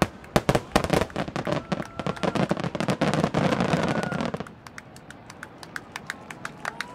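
Fireworks finale: a rapid barrage of booms and crackling bursts, which thins after about four and a half seconds to scattered crackles.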